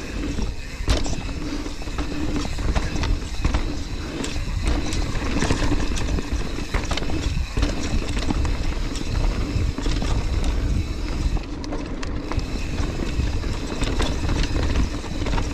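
Mountain bike descending a rough, rocky trail at speed: a continuous low rumble of tyres over rock and roots, with dense, irregular rattling and knocking from the bike's chain, frame and suspension.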